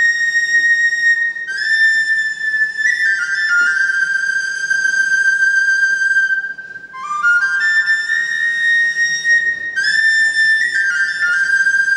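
Solo tin whistle playing a slow melody in long held high notes, sliding up into several of them, in two phrases with a short breath pause about two-thirds of the way through.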